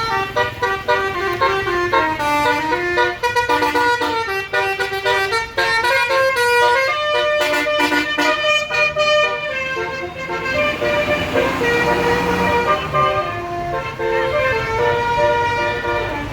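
Bus's Basuri telolet multi-tone air horn playing a melody, its notes changing pitch in quick steps, over a steady low rumble.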